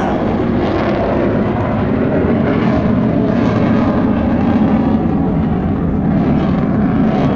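Display jet aircraft flying high overhead: a loud, steady rumble of jet engine noise.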